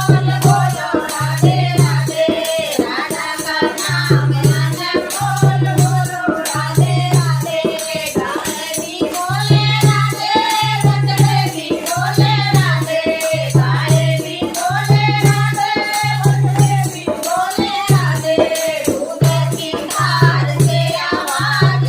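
Devotional kirtan singing, with voices chanting a Radha bhajan over a steady low repeating beat and jingling hand percussion.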